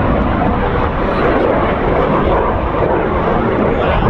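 Steady, loud jet noise from Canadair CT-114 Tutor trainers, each powered by a single J85 turbojet, flying overhead.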